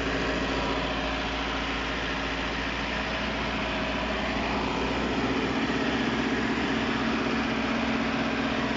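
Volvo D5E four-cylinder diesel engine of an EC210D excavator running steadily, with an even hum. It now runs without stalling, its failed fuel pressure sensor having been replaced.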